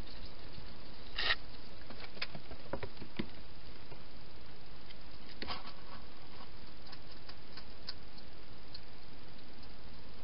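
Small scattered clicks and rustles from a wild hedgehog foraging close to the microphone, the loudest about a second in, over a steady background hiss.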